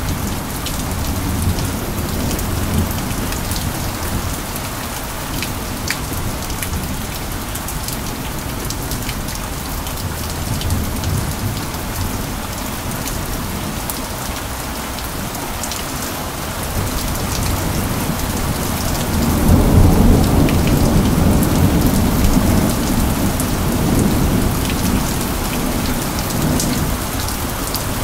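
Steady rain with scattered close drops, and a low rumble of thunder that builds about two-thirds of the way in and slowly eases off.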